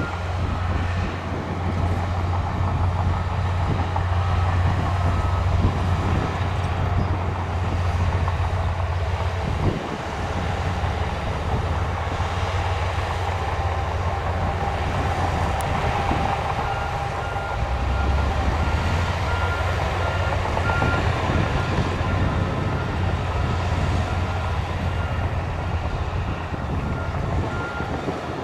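Shantui crawler bulldozers' diesel engines running under load as they push dirt, a low steady drone. A reversing alarm beeps in the background near the start and through much of the second half.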